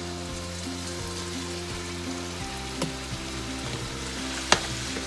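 Peppers sizzling in a frying pan as shredded salt cod is tipped in on top of them from a plate. There is a small tick, then a sharp tap near the end.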